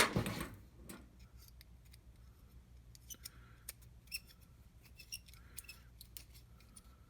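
A sharp click at the start, then a scatter of small, light clicks from plastic and metal parts being handled and worked, some with a brief high ring.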